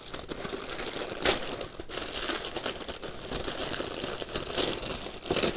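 Tissue paper rustling and crinkling as it is pulled open by hand, with a few sharper crackles.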